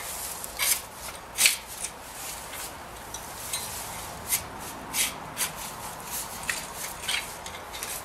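Garden fork loosening soil to lift potatoes: the tines scrape and crunch into the dirt in about ten irregular strokes.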